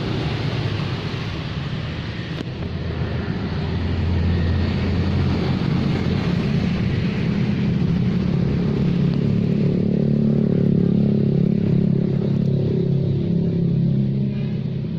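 A small engine running steadily nearby, growing louder about four seconds in, its pitch wavering a little later on.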